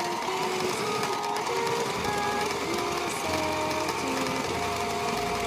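Sailrite sewing machine running steadily, stitching panels of sailcloth, with background music playing over it.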